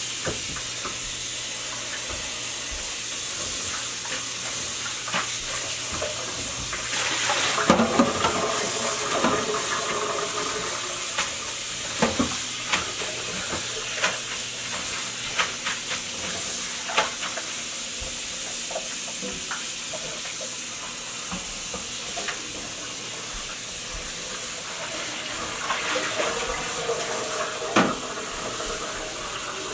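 Tap water running steadily into a stainless steel sink while leafy greens are rinsed in a bowl, with scattered knocks and splashes as the greens and bowl are handled.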